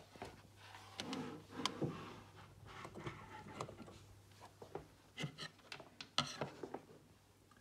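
Handling noise from a small plastic charging dock and its USB cable being plugged in and set down: several sharp plastic clicks and knocks among irregular rubbing and rustling.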